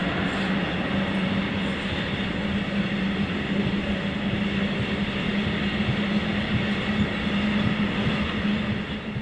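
Freight train's car-carrier wagons loaded with vans rolling past at speed: a steady rumble and rattle of wheels on rails, with a steady low hum under it.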